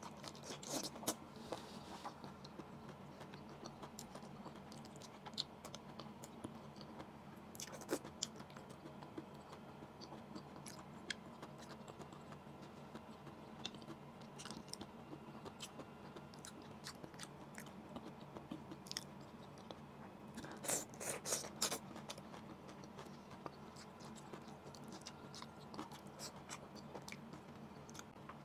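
Close-up mouth sounds of chewing cooked long beans: soft wet chewing with scattered sharp crunches and clicks, and a louder run of crunches about three-quarters of the way through. A faint steady hum runs underneath.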